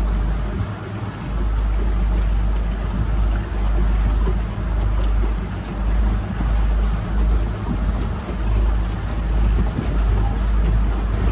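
Wind buffeting the microphone aboard a motorboat under way, gusting and easing, over the steady rush of the boat running through the water.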